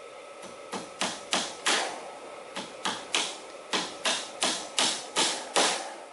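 Claw hammer driving nails into a pressure-treated 2x4 to fasten welded wire mesh down. About a dozen sharp blows in three quick runs, each with a short ring.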